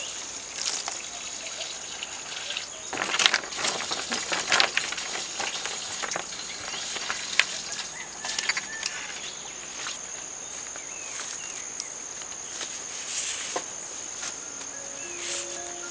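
Coffee beans clicking and rustling against a woven bamboo tray as hands sort through them, loudest about three to five seconds in, over a steady high-pitched insect drone. Soft piano music comes in near the end.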